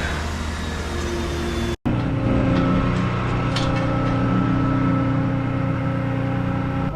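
Heavy diesel truck engine running steadily at the pour, cutting out briefly about two seconds in and coming back louder.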